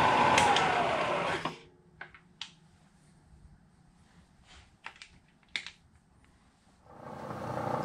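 Bridgeport variable-speed milling head with its 2 HP motor running, then switched off: the spindle whine drops in pitch and dies away about a second and a half in. A few light clicks follow as the levers on the head are handled, and near the end a steady running sound comes back up.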